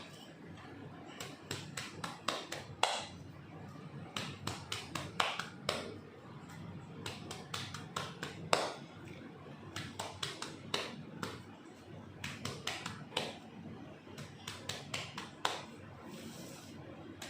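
Cupped-hand chest percussion (clapping) on a patient's back: repeated sharp pats in short runs of a few a second, part of chest physiotherapy to loosen sputum.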